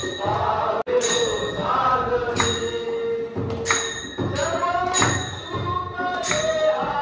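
Group of men singing a devotional Harinam bhajan in chorus, accompanied by small hand cymbals struck on a steady beat about every second and a quarter, with a drum underneath.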